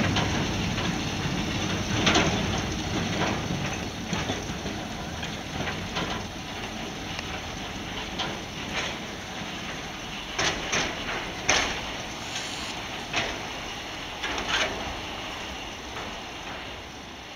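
Small 450 mm narrow-gauge mine locomotive rolling away along snowy track: a steady rushing noise with scattered knocks and clanks from the running gear, fading as it goes.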